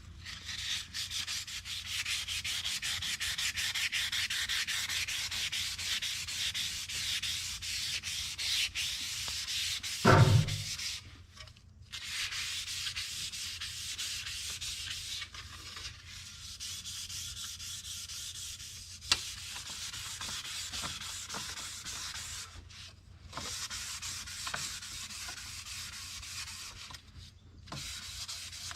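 Sandpaper being rubbed back and forth over a stainless steel car trim strip, a steady scratchy hiss with a few short pauses. A single loud thump comes about ten seconds in.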